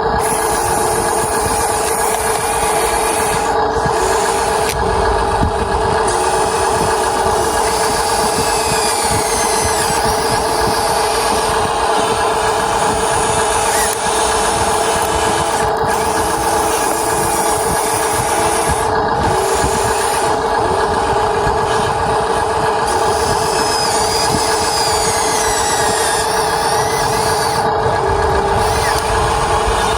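Huina 1593 RC excavator running: a steady mechanical hum with several constant tones, with fainter whines rising and falling now and then as its motors change speed.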